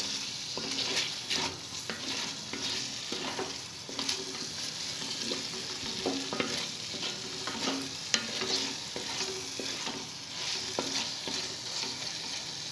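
Chicken pieces frying in oil and masala in a metal pot, sizzling steadily while a wooden spatula stirs them, with irregular scraping strokes against the pot. The chicken is cooked through at this stage.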